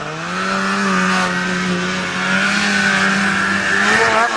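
Snowmobile engine held at high revs under throttle, a steady drone that climbs in pitch and loudness over the first second and drops back shortly before the end.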